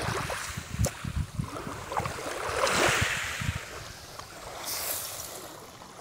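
Small waves washing over a coral-rubble shore, swelling about three seconds in, with a few sharp taps as a chunk of coral cracks open a sea urchin's shell.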